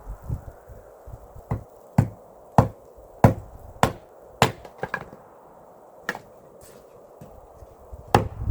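A series of sharp chopping knocks, a blade striking wood, coming irregularly about every half second, with a pause before one last strike near the end.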